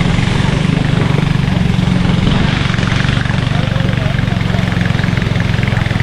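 Engine of a long wooden river boat running steadily at a constant pitch while under way, with water rushing along the hull.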